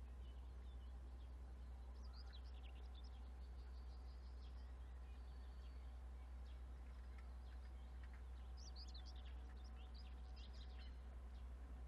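Faint outdoor ambience: small birds chirping in two short bouts, over a steady low hum.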